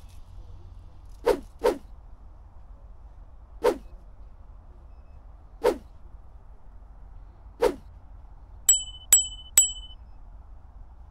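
Subscribe-button animation sound effects: sharp clicks, a quick pair and then three singles about two seconds apart, followed by three quick notification-bell dings near the end.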